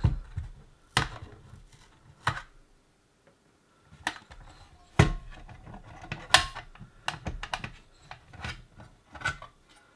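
Irregular clicks and knocks, about ten of them, as a CB radio's metal case and plastic front panel are handled and its cover is lifted off.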